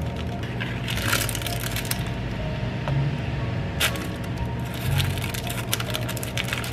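Light crackles and clicks as gloved hands lift slices of frosted cake and set them onto paper liners, over a steady low hum. There is a burst of crackling about a second in, a sharp click near four seconds, and a run of small clicks near the end.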